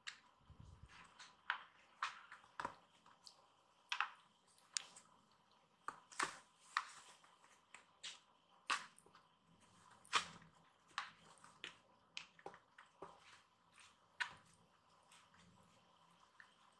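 Irregular light taps and scratches of a kitten's paws and claws on a tatami mat as it bats at a string toy, about one or two clicks a second, some in quick clusters.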